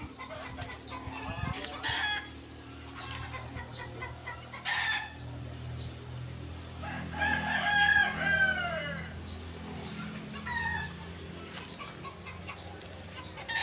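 A rooster crowing once, a long arched call about seven seconds in, with shorter chicken calls before and after it, over a steady low hum.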